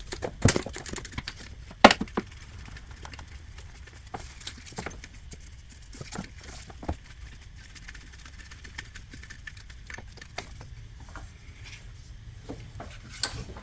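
Irregular clicks and knocks of hand tools working loose the 15mm bolt of an engine's belt idler pulley. Two sharp knocks in the first two seconds are the loudest, followed by lighter scattered ticks.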